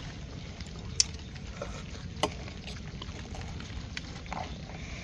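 Chopsticks clicking against a rice bowl while eating: a few sharp clicks, the loudest about a second and two seconds in, over a low steady rumble.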